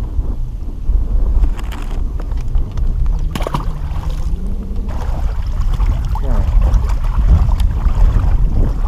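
Wind buffeting the microphone as a low, steady rumble, with a single sharp knock about three and a half seconds in.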